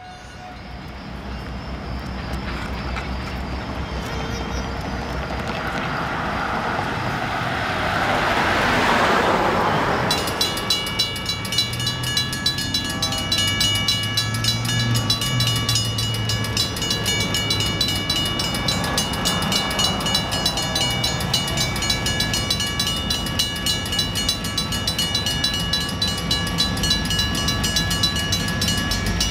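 A rising rush of noise from an approaching train. After a cut, a railroad crossing's mechanical bell rings steadily with rapid, evenly spaced strikes.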